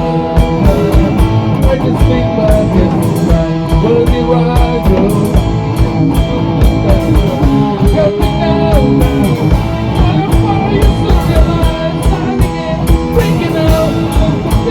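Rock band playing an instrumental passage: drum kit and bass keep a steady beat under a guitar lead line that bends up and down in pitch.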